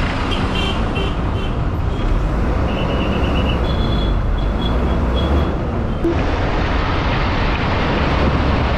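Steady engine and road rumble of a moving city bus, heard from inside the bus with traffic alongside, with a few faint high chirps in the first half.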